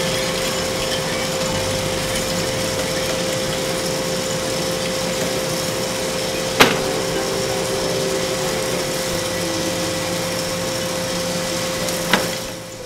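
Coffee roaster's cooling tray running after the drop: the fan drawing air through the freshly roasted beans and the stirring arms turning them make a steady whirring with a hum, the cooling that stops the roast. A sharp click comes about halfway, and another near the end, after which the sound fades.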